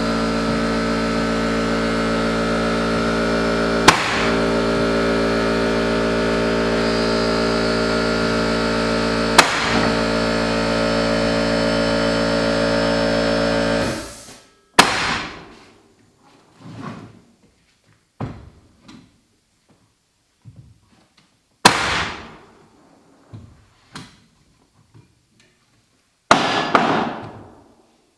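Air compressor running with a steady hum for about fourteen seconds, then shutting off. A series of sharp blows follows: a rubber mallet striking a pneumatic floor nailer to drive flooring nails, each with a short ring.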